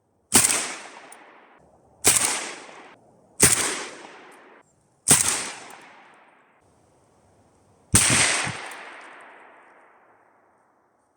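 Saiga 12 semi-automatic 12-gauge shotgun firing five single shots, spaced one to three seconds apart, each followed by a short fading echo; the last shot rings on longest.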